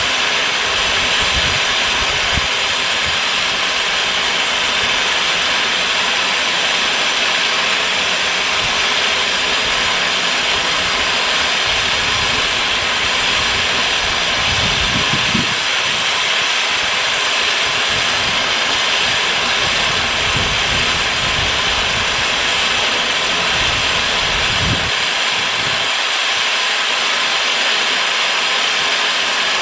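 Live steam locomotive CGW 292 hissing steadily as it vents steam, with a few low rumbles underneath.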